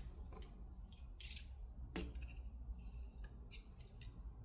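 Faint scattered clicks and a brief scrape of a caliper being slid and set against a steel drill press vise jaw to measure its height, over a low steady hum.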